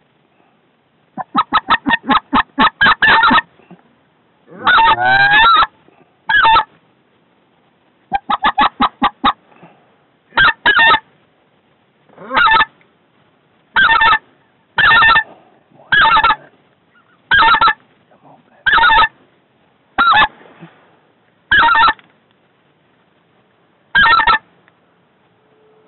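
Specklebelly (white-fronted goose) calls, loud and close. Two quick runs of short rapid notes come first, with a wavering call between them. After that come about ten single calls spaced a second or so apart.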